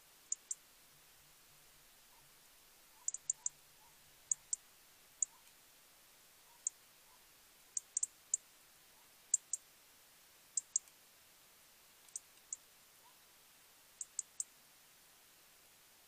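European robin giving short, sharp, high-pitched 'tic' calls, irregular and often in quick pairs or threes, against a faint steady hiss.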